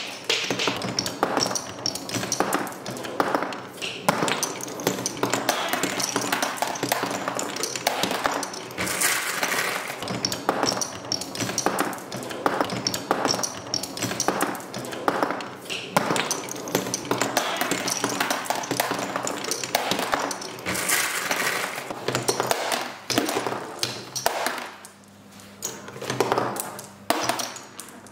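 Many marbles rolling and clattering down a Hape Quadrilla wooden marble run: a dense, constant stream of clicks and clinks as they hit the wooden rails, the spirals and each other.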